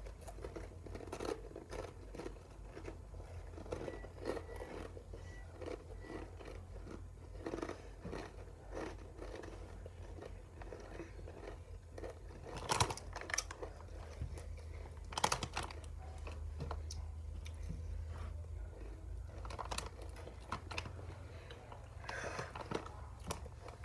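Mouthfuls of Takis rolled tortilla chips being chewed, three chips at a time: irregular crunching, with a few louder crunches about halfway through.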